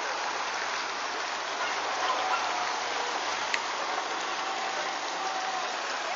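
Steady rushing outdoor noise with faint distant voices, and a single short click about three and a half seconds in.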